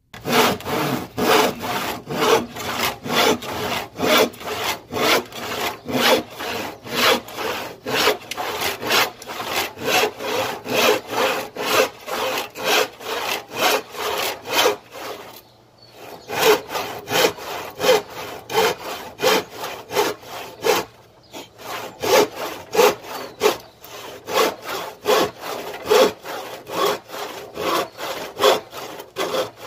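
Handsaw cutting wood in quick back-and-forth strokes, about three a second, with a short pause about halfway through.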